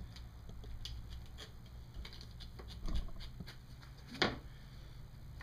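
Nylon sling webbing being handled and pulled through a buckle: light rustles and small clicks, a low knock about 3 seconds in, and a short, sharp scrape of the strap a little after 4 seconds.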